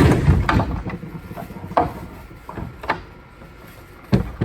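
Stripped-down Bissell 677 sweeper's frame and wheels being handled. A loud crash comes right at the start, followed by several separate knocks and clunks.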